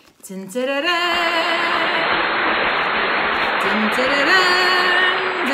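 A loud held sung note that slides up at the start and moves to a new pitch about four seconds in, over a dense steady hiss, in the manner of a celebratory ta-da effect.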